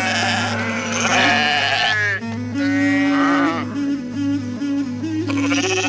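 Sheep in a large flock bleating several times over background music, a melody that steps up and down above a steady low drone.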